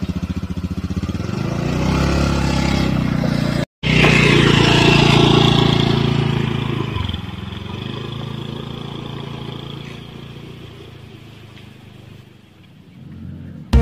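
Motor scooter engine running with a fast, even putter and revving up. After a brief break in the sound just before four seconds in, it accelerates away and fades over several seconds.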